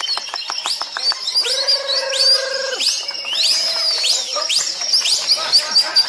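Lovebird chattering in its contest song (ngekek) among many other caged birds, a dense chorus of quick rising and falling high chirps. In the first second there is a run of quick, even clicks, and soon after that a steady buzzing tone lasts about a second and a half.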